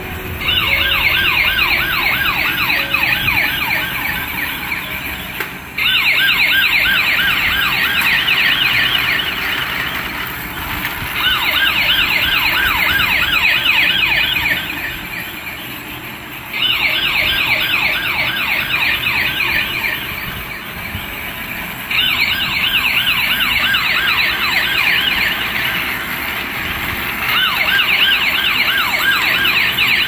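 Toy police car's electronic siren from its small speaker: a fast, repeated up-and-down yelp that comes in bursts of about four seconds, with short quieter gaps between them.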